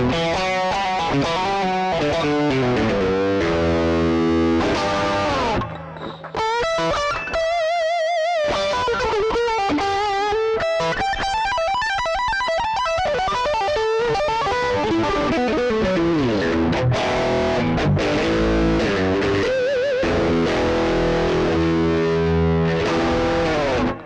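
Strat-style electric guitar played through a Behringer GDI21 amp-simulator pedal: distorted lead lines of sustained notes with vibrato. There is a short break about six seconds in, and the playing cuts off near the end.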